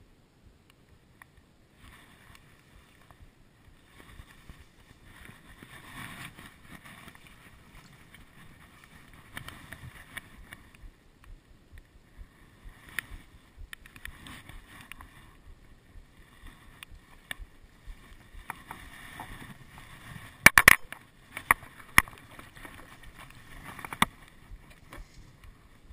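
Reeds and tall grass rustling and brushing against the camera, starting about two seconds in, with sharp knocks and clicks scattered through it, the loudest cluster about twenty seconds in.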